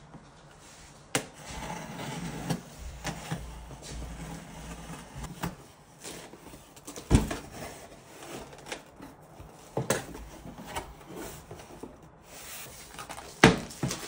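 Snap-off utility knife slicing through packing tape on a cardboard box, then cardboard flaps scraping and rustling as the box is opened. Several sharp knocks of cardboard and a bamboo tray being handled, the loudest near the end.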